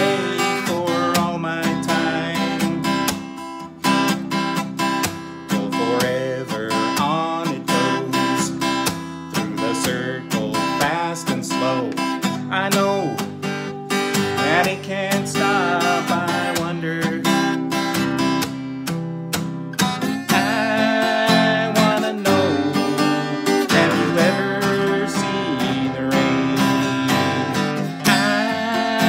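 Steel-string acoustic guitar strummed in a steady rhythm, with a man singing along.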